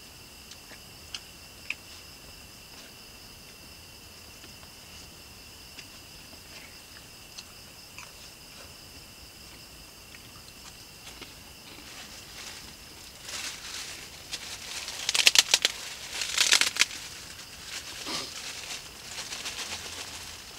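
A spoon ticks a couple of times against a plate. From about two-thirds of the way through, a clear plastic bag crinkles and rustles loudly as it is handled, loudest for a couple of seconds near the end.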